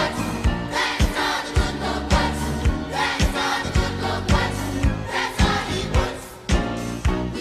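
Background music: voices singing over a steady beat of about two strikes a second.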